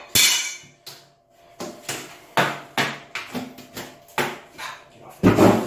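Stiff cut plastic plate pieces being handled and pulled apart by hand. A brief crackling rustle comes first, then a series of sharp plastic clicks and knocks, with a louder thump near the end.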